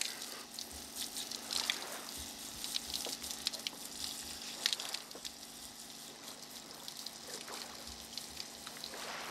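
Water spraying from a hand-held bush-shower head onto a man's body and splashing onto the sand, over the steady hum of the shower's small electric pump.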